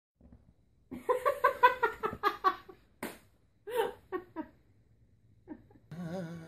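A person laughing: a quick run of high-pitched giggles starting about a second in, then a few shorter laughs a little later.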